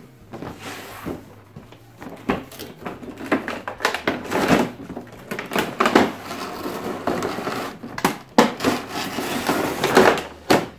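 Cardboard collector's box and its clear plastic blister tray being handled and slid apart: irregular scraping and rustling with several sharp knocks.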